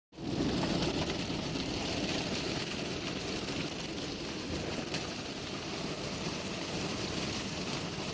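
Hailstones pelting down in a heavy hailstorm, a steady dense patter of many small hits.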